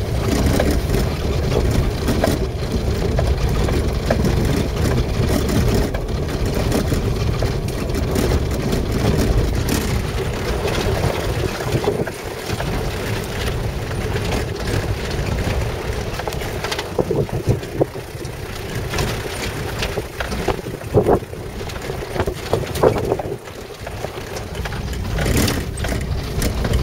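Vehicle running slowly over a rough, rocky dirt track, heard from inside the cab: a steady engine and tyre rumble, with sharp knocks and rattles as it goes over bumps, several in a row about two-thirds of the way through.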